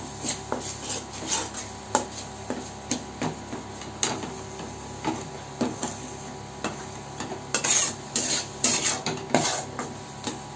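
Steel spatula scraping and knocking against a metal kadhai as a thick onion-garlic-chilli masala paste is stirred and fried. The scrapes come irregularly, one or two a second, and grow busier and louder between about seven and a half and nine and a half seconds in.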